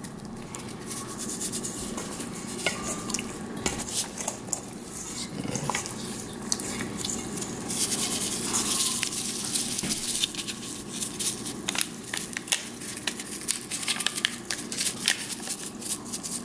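Raw oxtail pieces being handled and turned in a stainless steel mixing bowl, with scattered small knocks and scrapes against the metal and a brief hiss about eight seconds in.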